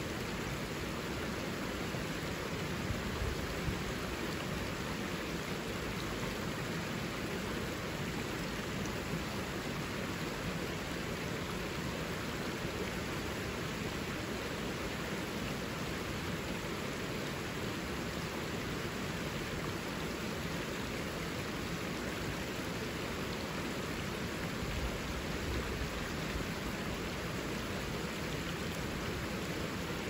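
River water rushing steadily over shallow rapids, an even, unbroken rush.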